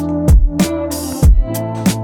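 Background music: sustained chords over a steady beat, with deep kick drums and hi-hats.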